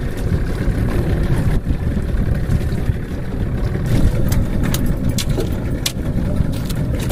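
Steady low rumble of wind and sea around a small wooden outrigger boat, with a few sharp clicks from about four seconds in.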